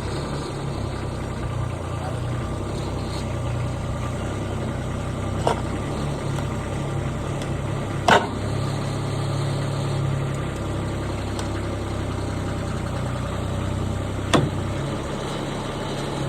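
Rippa NDI665 mini skid steer's 23-horsepower diesel engine running while the machine lifts a load of about 810 pounds, its note shifting a little under the work. Three short sharp knocks stand out, the loudest about eight seconds in.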